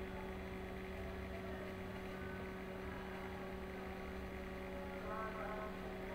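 Steady electrical hum, two steady tones an octave apart, over a constant noisy background; faint voices come through briefly about two seconds in and again near the end.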